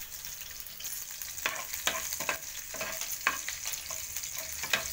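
Tempering of mustard seeds, cumin, green chillies and crushed garlic sizzling in hot oil in a frying pan, with a steady hiss. A spatula scrapes and knocks against the pan several times as the garlic is stirred.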